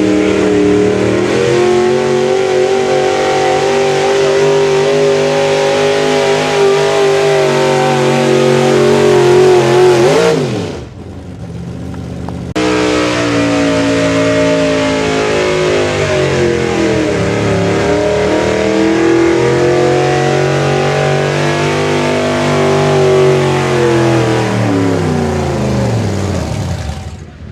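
Pulling-truck engines run hard at high revs while dragging a weight-transfer sled, heard in two separate pulls. The first engine holds steady for about ten seconds, then its pitch drops away. After a brief lull a second truck's engine picks up high revs, dips once partway through and winds down near the end.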